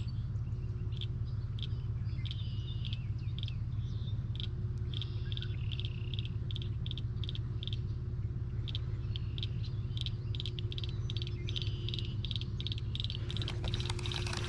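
Outdoor ambience: birds chirping in quick repeated short notes over a steady low rumble.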